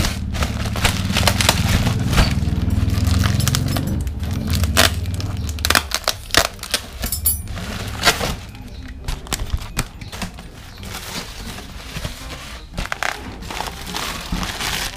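Plastic air-column bubble wrap crinkling and crackling as it is handled and turned over, with many sharp crackles throughout. A low rumble sits under the first six seconds or so.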